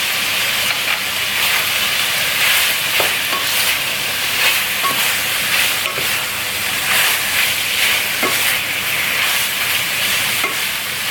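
Chicken frying in green curry paste and oil, sizzling steadily, while it is stirred with a utensil that scrapes and knocks against the pan every second or two.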